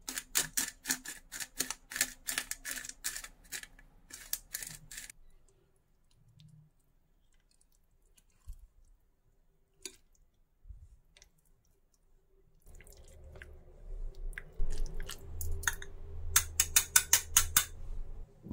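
A metal spoon scraping avocado flesh out of its skin into a glass bowl, a quick run of scrapes and clicks for several seconds. After a quiet pause, a wire potato masher mashing the avocado in the bowl, with dull thuds and a fast burst of clicks near the end.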